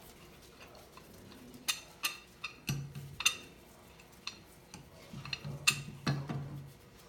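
Steel C-clamps clinking and knocking against one another as another clamp is set onto a glue-up already in clamps. The sound is a string of sharp metal clicks and clanks, loudest about three seconds and about six seconds in.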